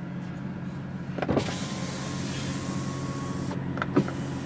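BMW M2's electric driver's-door window being lowered: a click about a second in, then the window motor whirring with a steady whine for about two seconds, ending with a knock as the glass stops at the bottom.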